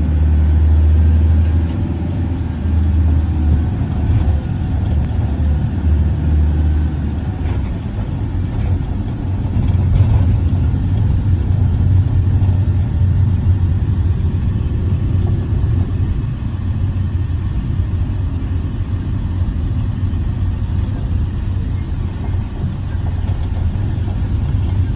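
A van driving along a road, heard from inside the cabin: a steady low rumble of engine and tyre noise.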